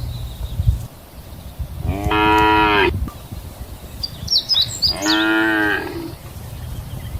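Cow mooing twice, each call about a second long and about three seconds apart.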